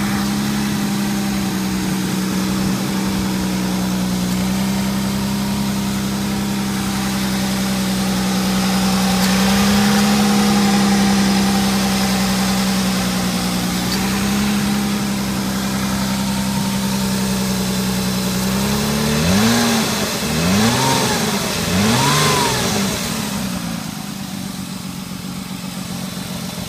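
A 2002 Ford Taurus's 3.0-litre Duratec 24-valve DOHC V6 idling steadily. About 19 seconds in it is revved three times in quick succession, each rev rising and falling, then it settles back to a steady idle.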